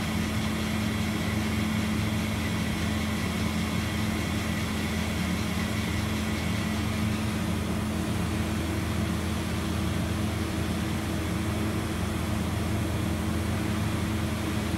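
Steady hum of a powered-up Mazak Integrex 200-II SY CNC lathe, with a high whine that fades out about halfway through.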